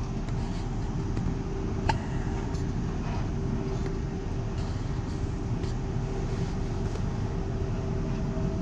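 Heathrow Connect Class 360/2 electric multiple unit running: a steady low rumble with a steady hum over it. There are a few light clicks and one sharper knock about two seconds in.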